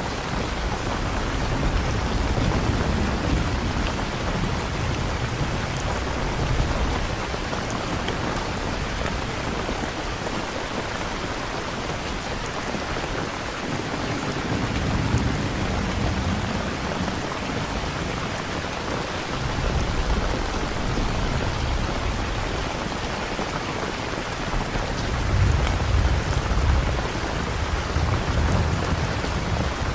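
Steady rain falling, with low rolls of thunder swelling up three times: near the start, about halfway and near the end.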